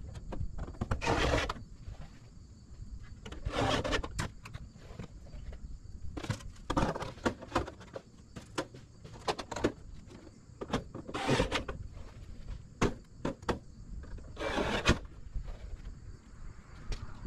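Gutter guard sections being handled and jammed into place along a roof gutter: a series of short scraping slides, each about half a second long, with sharp clicks and knocks between them.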